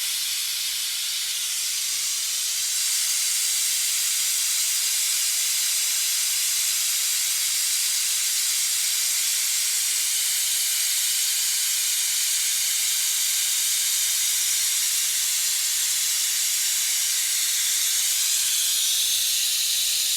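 Pneumatic fluid extractor hissing steadily on compressed air as it sucks beet-juice ballast out of a tractor tire, getting a little louder about three seconds in.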